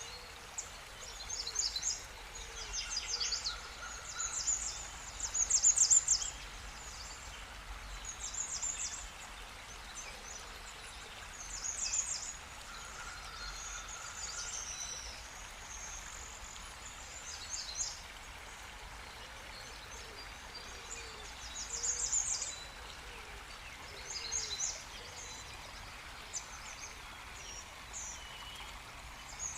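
Small birds singing and chirping in short high-pitched bursts every few seconds, over a steady background hiss.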